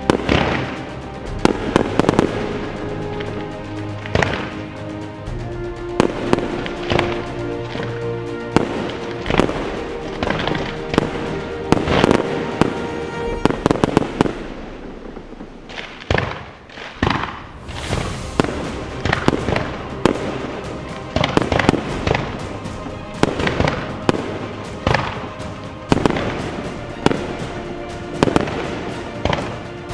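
Fireworks shells bursting in quick, irregular succession, often several bangs a second, over music with held tones. The bangs thin out briefly about halfway through, then pick up again.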